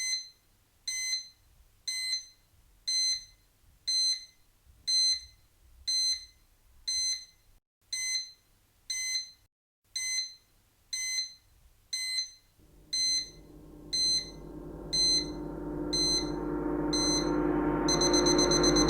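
Countdown-timer sound effect: a short high electronic beep once a second. About two-thirds of the way through, a drone of several held tones starts under the beeps and swells steadily louder, and near the end the beeps run together into one continuous tone.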